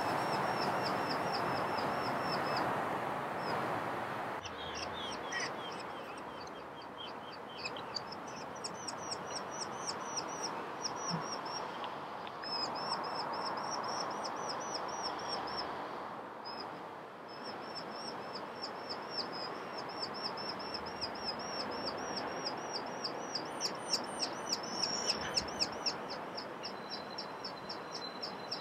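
Eurasian skylark singing a long, unbroken run of rapid, high trills and warbles, over a steady background hiss.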